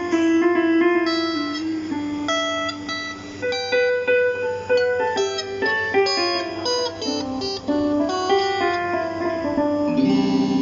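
Music: a quick melody of plucked, guitar-like notes with chords underneath.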